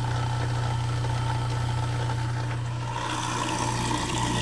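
Newly installed InSinkErator Badger 100 garbage disposal running on test, its motor giving a steady hum, with no leaks showing. About three seconds in the sound grows brighter and hissier.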